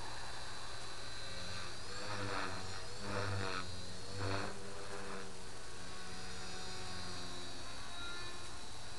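Align T-Rex 450 Pro electric RC helicopter heard from a distance: a steady rotor drone, with three short surges in the middle where the pitch bends up and down.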